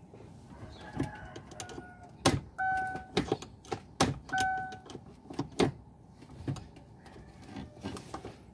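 Sharp plastic clicks and knocks from hands working the exposed automatic gear-selector mechanism of a Chevrolet, which is broken and jammed. Two short electronic beeps sound between them, about two and a half and four seconds in.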